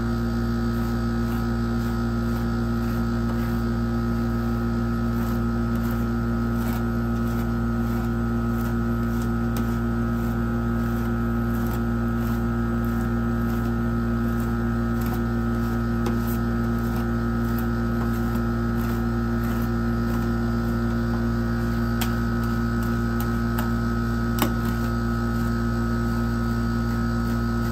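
Steady electrical hum of a rolled ice cream cold-plate machine's refrigeration unit running, with faint scrapes and taps of metal spatulas on the frozen steel plate.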